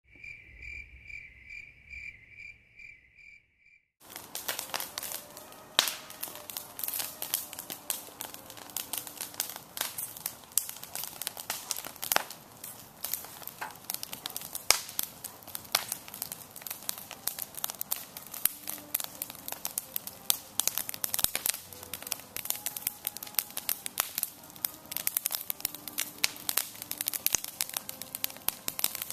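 A wood campfire crackling and popping, a dense, irregular run of sharp snaps, starting about four seconds in. Before that a cricket chirps in an even, high-pitched pulse, about two chirps a second.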